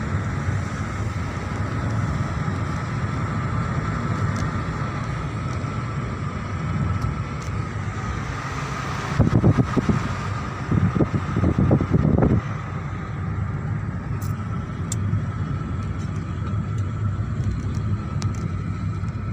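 Car interior noise while driving: a steady low drone of engine and tyres heard from inside the cabin. About halfway through come a few louder, low rumbling bursts lasting a few seconds.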